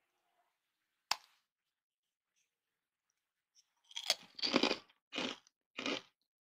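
Crisp deep-fried namak pare (fried maida dough strips) snapping and crunching: one sharp snap about a second in as a piece is broken by hand, then about five short crunches from about four seconds in.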